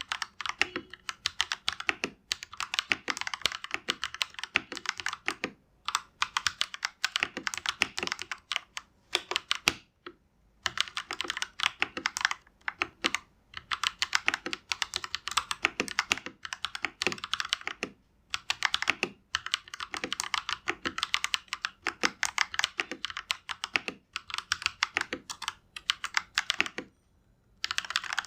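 Fast typing on a GAMAKAY LK67 mechanical keyboard with Akko Lavender Purple tactile switches: a dense stream of key clacks in runs, broken by several short pauses.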